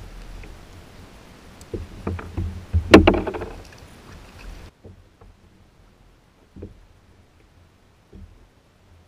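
Water splashing against a plastic Hobie Outback kayak as a hooked fish thrashes at the surface alongside, with knocks on the hull. A sharp splash or knock about three seconds in is the loudest sound. After that the sound drops off suddenly to a few faint knocks.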